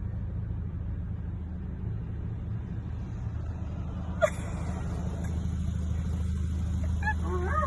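Steady low rumble of a running vehicle, with one sharp click about four seconds in and wavering, pitched sounds beginning near the end.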